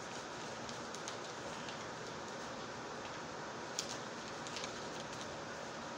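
A sheet of paper being folded and creased by hand into a paper airplane: a few faint crinkles and taps over a steady hiss.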